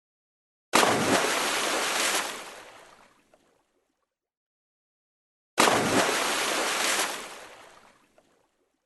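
A water splash heard twice, about five seconds apart. Each one starts suddenly, rushes on for about a second and a half, then fades away, with dead silence between.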